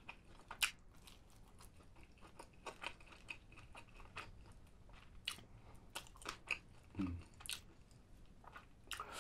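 A person chewing and biting into spicy oven-roasted chicken, close to the microphone: irregular crunches and wet mouth clicks.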